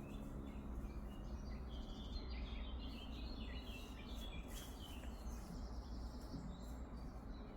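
Small birds singing: a quick run of short, high chirps for the first few seconds, then fainter chirps near the middle, over a steady low outdoor background hum.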